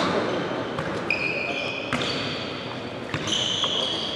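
A handball bouncing and being caught on a gym court, a few sharp thuds, with athletic shoes squeaking briefly on the floor several times.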